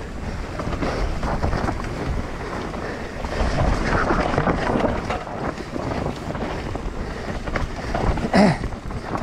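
Mountain bike descending a dry dirt trail at speed: wind buffeting the action camera's microphone over the tyres' crunch and the bike's steady rattling, with a louder clatter a little before the end.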